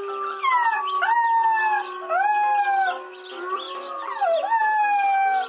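A puppy howling three times, long high calls that slide down in pitch, over background music.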